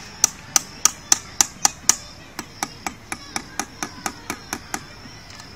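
Hammer tapping in a steady rhythm of about four blows a second. There are seven loud blows at first, then a softer run of about eleven more.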